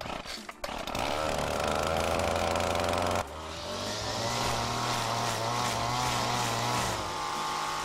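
A gas string trimmer's engine starts up less than a second in and runs steadily. Its pitch wavers as the line cuts grass along a concrete edge, and there is a sudden change in the sound about three seconds in.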